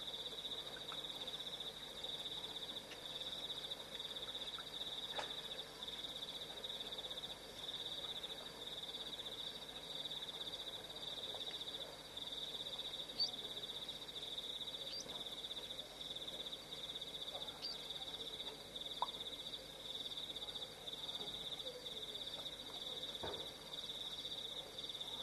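Night chorus of crickets: a continuous high-pitched trilling, with a few brief sharp chirps or ticks over it.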